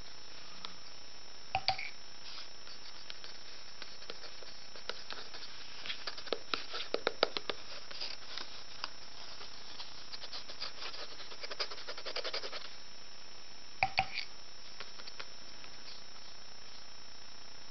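Wooden drawing pen scratching and tapping on paper in quick clusters of small ticks, with a pair of sharper knocks near the start and another pair about two-thirds of the way through, over a steady low hiss.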